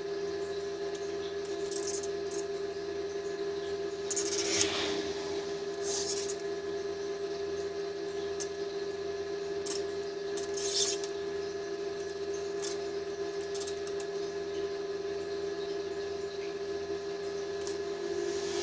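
Metal parts being handled on a steel workbench: scattered light clicks and scrapes, the loudest about four and a half and eleven seconds in, over a steady machine hum.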